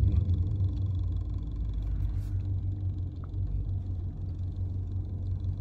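Steady low rumble of a car, heard from inside it.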